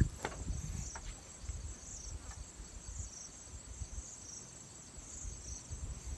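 Insects chirping in a steady high-pitched chorus, with a low rumble underneath and a few sharp clicks in the first second.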